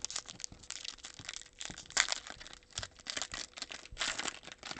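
Foil wrapper of a basketball trading-card pack being torn open and crinkled by hand: irregular crackling and rustling, loudest about two seconds in and again around four seconds.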